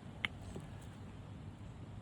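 A single short, sharp click about a quarter second in, over a low steady background hum.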